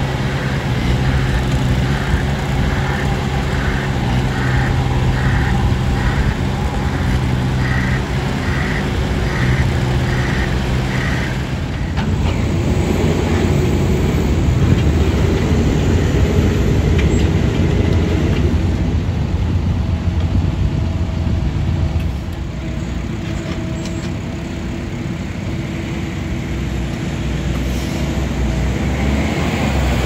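Diesel construction machinery running on a roadworks site. First comes the steady engine of a Wacker Neuson trench roller with a regular pulse a little under twice a second. From about twelve seconds in a compact excavator is heard digging a trench, a louder, rougher engine noise that eases off about ten seconds later.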